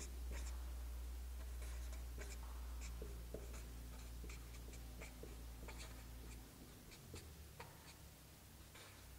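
Marker pen writing on a sheet of paper: short strokes at an uneven pace as the letters of an equation go down. A steady low hum underneath drops away about six and a half seconds in.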